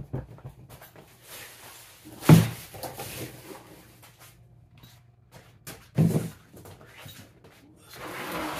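Two heavy knocks about four seconds apart, with lighter clicks and knocks between them, as things are handled and moved about. Near the end comes a steady rustling.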